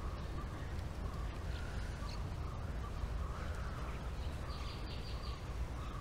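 Crows cawing now and then over a steady low rumble of outdoor background.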